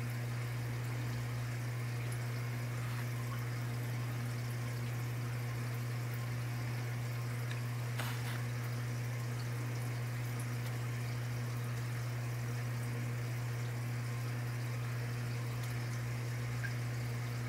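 Steady low hum with an even hiss over it, unchanging throughout, with one faint click about eight seconds in.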